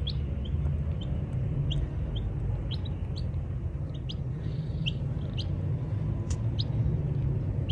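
Baby chicks peeping: short, high cheeps, a couple a second and irregular, over a steady low rumble.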